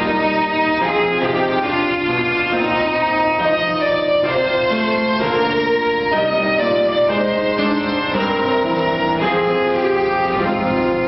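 Violin playing a slow melody, each note held about half a second to a second.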